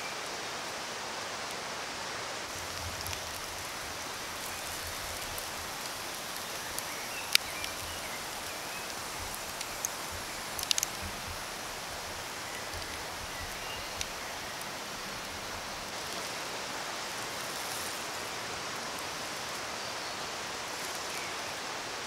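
Steady rushing outdoor background with a few sharp pops from a campfire's bed of glowing embers, the loudest about seven seconds in and others near eleven and fourteen seconds.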